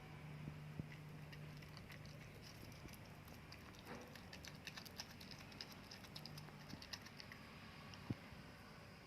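A cat eating: faint, quick clicking and smacking of chewing and licking, thickest in the middle of the stretch, over a low steady hum.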